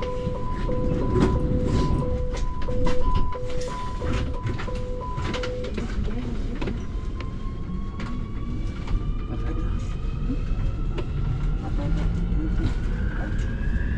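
A Nuremberg U3 U-Bahn train's door warning signal, short high and low beeps alternating, stops about six seconds in. Then the train's electric traction motors whine, rising steadily in pitch as it pulls away from the platform.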